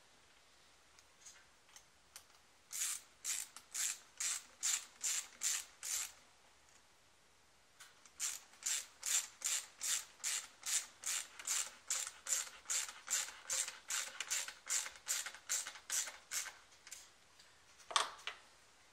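Ratchet clicking in quick back-and-forth strokes, tightening the hose clamps on a cold air intake: a short run of about eight strokes, a brief pause, then a longer run of about thirty strokes at about three a second, with one sharper click near the end.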